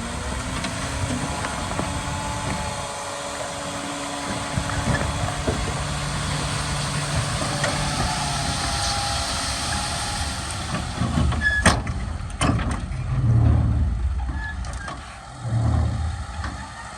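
Heavy diesel earthmoving machinery running steadily, with a few sharp knocks about twelve seconds in. Near the end come two deep engine swells that rise and fade.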